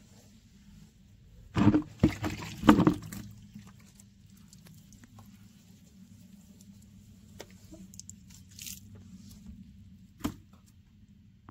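A car body being hand-washed with a wet sponge: quiet rubbing and wiping on the paintwork, with a cluster of loud knocks about two seconds in and a single sharp knock near the end.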